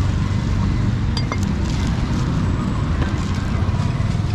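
Steady low rumble of street traffic, with a couple of faint sharp clicks about a second in.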